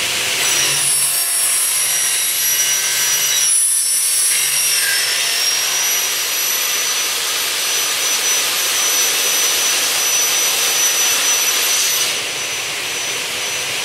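Two 530 mm carbide-tipped blades of a Gamma Swing Digit double-head cut-off saw spinning and cutting aluminium extrusion: a loud, steady high-pitched whine with a hiss. The upper part of the sound falls away about twelve seconds in, and the sound gets somewhat quieter.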